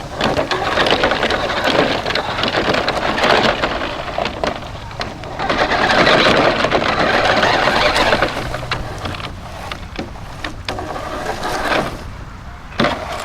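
Radio-controlled toy pickup truck, a New Bright 1/6 scale model, driving over rough ground: a steady noisy rattle full of small clicks from its motor, drivetrain and tyres. It is loudest about six to eight seconds in.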